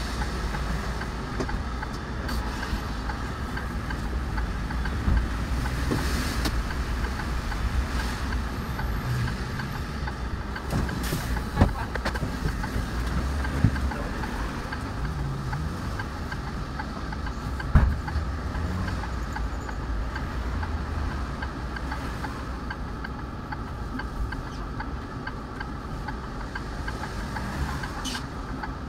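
City bus engine running, heard from inside the bus as a steady low rumble, idling at a standstill through the second half. A few sharp knocks stand out near the middle.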